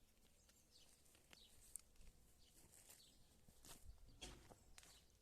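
Faint chirping of small birds: many short, downward-sliding calls scattered throughout, over a faint low rumble.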